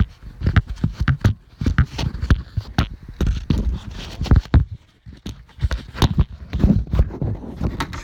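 Irregular knocks, taps and clunks of handling and moving about, several each second, with a short pause about five seconds in.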